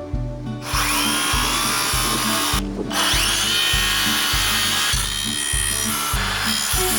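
Background music with a steady beat. Over it, twice, comes a rising whine that climbs and then holds, like a cordless power drill spinning up.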